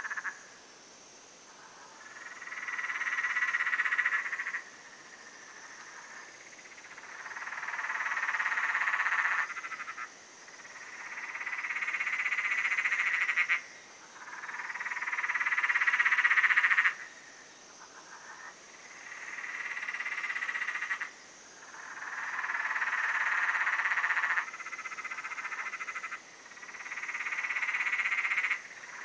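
A frog chorus: about eight long calls, each swelling in loudness over two or three seconds and then cutting off suddenly, one after another every three or four seconds. A faint steady high hiss lies underneath.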